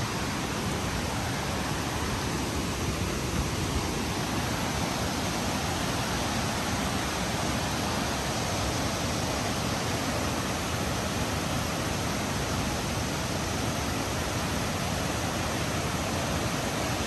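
Steady rush of river water cascading over boulders, with a waterfall close by, even and unbroken.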